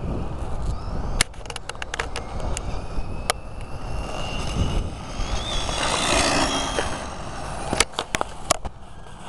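RC car driving fast, its motor whine rising and a brief rush of noise as it goes by about six seconds in, over steady wind rumble on the microphone. Several sharp clicks, the clearest about a second in, near three seconds and near the end.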